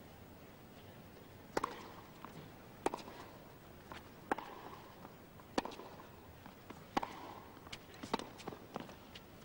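A tennis rally on a hard court: sharp racket strikes on the ball about every second and a half, beginning about one and a half seconds in, with fainter ball bounces between them and a quicker run of hits and bounces near the end.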